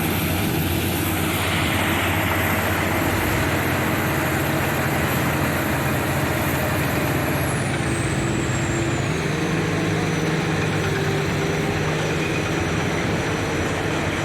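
Heavy diesel engines of earthmoving machines (crawler dozer and excavator) running steadily. A thin high whine drops in pitch about halfway through, and the engine note shifts slightly higher about two-thirds in.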